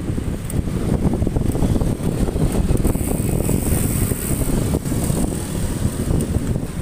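Wind buffeting a phone's microphone on a moving two-wheeler, a loud, fluttering low rumble mixed with road and traffic noise.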